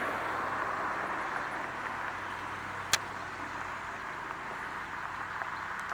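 Steady low hum and rushing noise of an idling car, with one sharp click about three seconds in.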